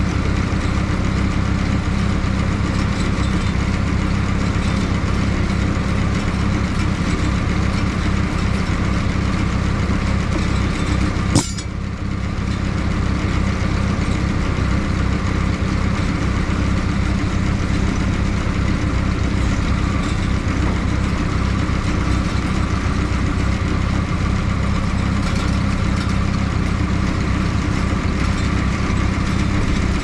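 A mobile dimension sawmill's engine running steadily, with a single sharp click about eleven seconds in.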